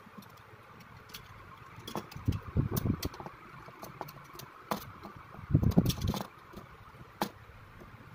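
Plastic parts of a toy scale-model car being handled and pressed together: scattered small clicks and knocks, with louder bursts of rubbing and clattering about two to three seconds in and again just before six seconds.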